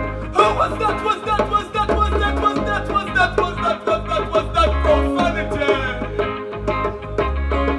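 Live band music with a deep bass note returning about every two and a half seconds, and a man singing into a microphone over it.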